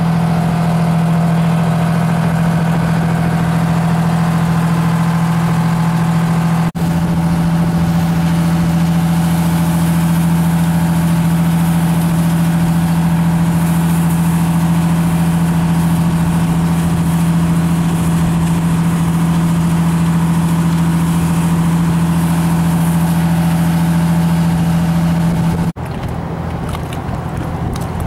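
Fire engine's engine running at a steady high speed to drive its water pump: a loud, unchanging low drone. Near the end it cuts off abruptly and a quieter outdoor sound follows.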